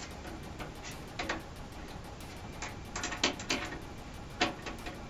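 A handful of short clicks and scrapes of a tool and metal parts as a stubborn part is worked into place in a computer case, several bunched in the middle.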